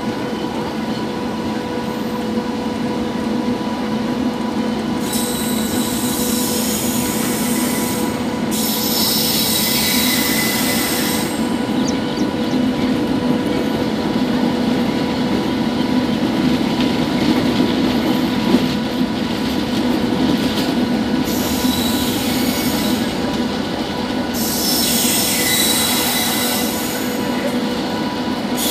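Indian Railways passenger coach rolling through a junction yard, heard from its open door. The wheels rumble steadily on the rails, with spells of shrill wheel squeal about five seconds in, again around nine seconds, and near the end.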